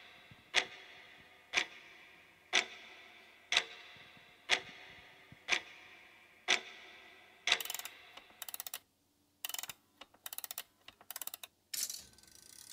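Clock-like ticking: a sharp, briefly ringing tick about once a second, seven times. It then gives way, about seven and a half seconds in, to short bursts of very rapid clicking.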